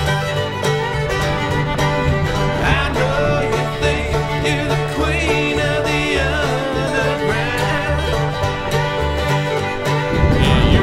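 Bluegrass music with banjo, guitar and fiddle over a steady bass beat. It grows louder near the end.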